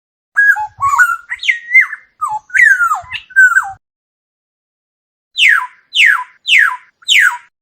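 Oriole calling: a varied phrase of fluty whistled notes that slide up and down. After a short pause come four quick calls, each falling steeply in pitch.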